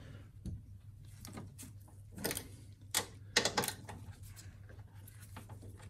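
Hand ratchet with a 13 mm socket clicking in short, irregular runs as it is worked back and forth, breaking loose the strut top-mount nuts.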